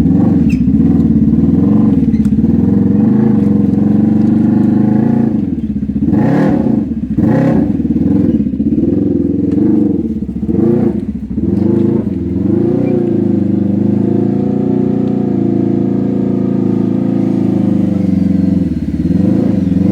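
Off-road vehicle engine running under load, its revs rising and falling. The revs dip and pick up again a few times in the middle.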